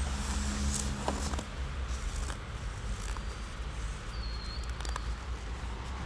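Outdoor background: a steady low rumble with a few scattered light clicks, and one short high chirp about four seconds in.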